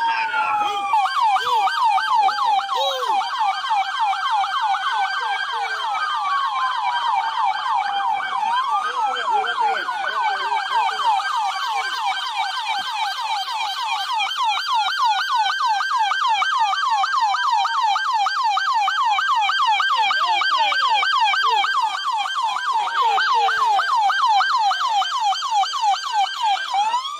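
Police vehicle siren sounding continuously. It mixes a fast, repeating yelp with slower wails that climb over a couple of seconds and drop back.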